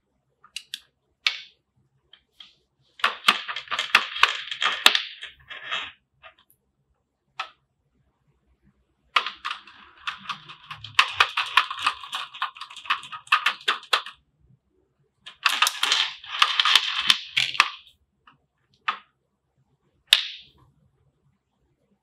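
A clear plastic blister tray and a magnetic silicone cable clip being handled, giving three bursts of dense crackling and clicking with a few single sharp clicks between them.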